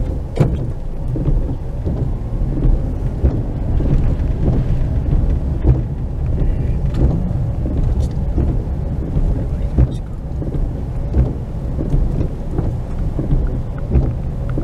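Car moving slowly over wet pavement in heavy rain, heard from inside the car: a steady low rumble of engine and tyres, with irregular taps of raindrops on the roof and windscreen.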